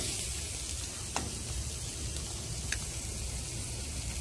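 Ribeye steak sizzling steadily on the grate over a lump-charcoal fire, with three short sharp clicks.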